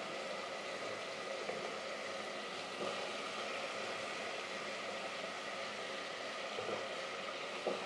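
Goat meat and potato pieces frying in a metal pot: a steady sizzling hiss, with a few faint knocks.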